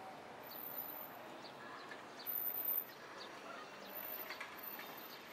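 City street ambience with small birds chirping faintly, a short high chirp about every half second. Just over two seconds in comes a brief, very high-pitched whine.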